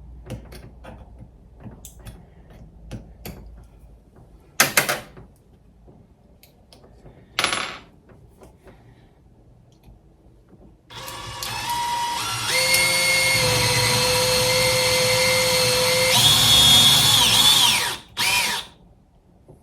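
DEWALT 20V Max cordless drill drilling into the mud flap's mount: two brief bursts, then a run of about seven seconds whose pitch steps up twice before it stops, and one more short burst near the end.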